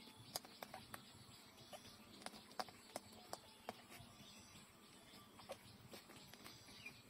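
Faint, irregular wet clicks and smacks of a week-old puppy suckling at its mother's teat, over near silence, the loudest click about two and a half seconds in.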